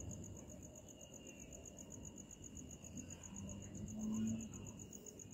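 Crickets chirping in a steady, fast, even pulse, with a second insect trilling on one steady note. About three to four seconds in, a brief low hum rises above them.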